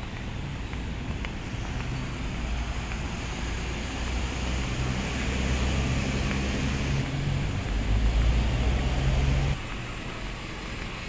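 Road traffic with a large vehicle's engine running, its low hum growing louder and then cutting off suddenly near the end.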